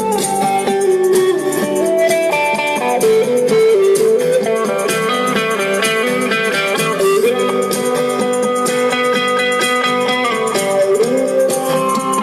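Live band playing an instrumental passage: a guitar melody stepping up and down over sustained chords and a steady drum beat, with no vocals.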